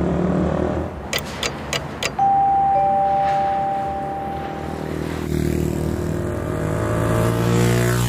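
Two 100cc single-cylinder motorcycles, a Honda Ape100 and an SL100, riding up the road towards the camera and passing by, the engine note rising and getting louder as they near and dropping as they go past near the end. About a second in come four quick clicks, then a held two-note tone for a couple of seconds.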